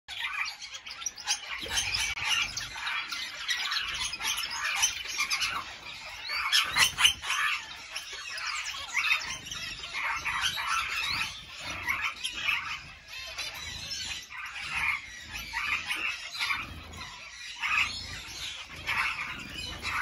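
A small flock of caged canaries and finches chirping, calling and warbling over one another in a continuous, busy chatter.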